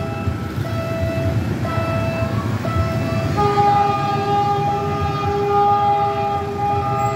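Diesel locomotive's horn (GE U14C) warning a level crossing as the train approaches: a few short toots, then from about three seconds in a longer chord-like blast with brief breaks, over a steady low rumble of traffic.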